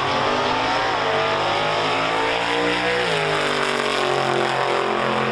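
Drag car's engine at full throttle, accelerating hard down the strip. Its pitch climbs, drops back sharply about three seconds in, then climbs again.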